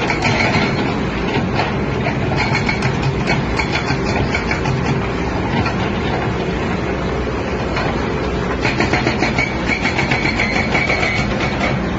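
Hydraulic breaker on an excavator hammering in rapid, evenly spaced blows over the steady drone of the excavator's diesel engine. The hammering comes in bursts: at the start, again a few seconds in, and once more for a couple of seconds near the end.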